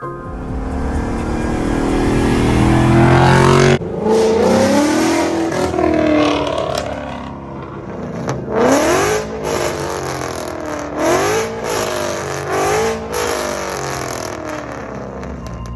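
A car engine revving hard. Its pitch climbs steadily and cuts off abruptly about four seconds in, then it goes through several more quick surges that rise and fall in pitch.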